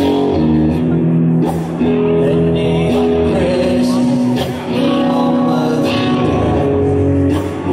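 Live rock band playing a slow song at full volume: electric guitar chords ringing over bass and drums, with a voice singing.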